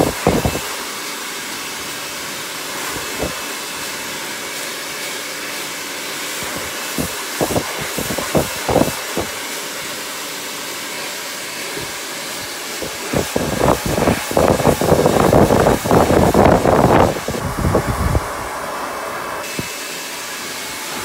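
Hand-held hair dryer blowing steadily during a round-brush blow-dry. Irregular bursts of low buffeting come and go over the steady noise, heaviest in the second half.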